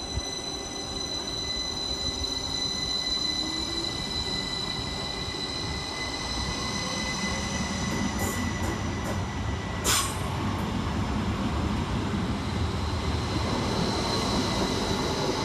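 Class 333 electric multiple unit pulling out of the station: a steady high-pitched electrical whine over a rumble of wheels on rail that builds through the second half, with a sharp click about ten seconds in.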